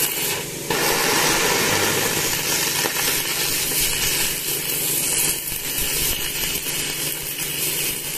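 Stick-welding arc from a Sanrex 400 MMA DC inverter welder set at about 398 amps, burning steadily as the electrode cuts into a thick plate, with a brief drop about half a second in.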